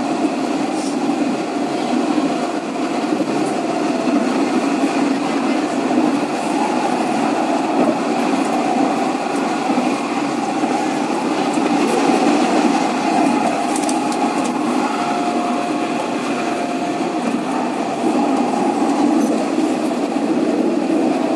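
Luas light-rail tram running at speed along the track, heard from inside the front of the tram: a steady rumble of wheels on rail with a faint whine that comes and goes.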